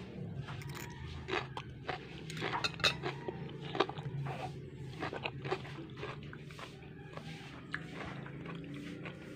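Metal fork clinking and scraping on a ceramic plate of kimchi in irregular short clicks, busiest in the first half and sparser later, over a steady low hum.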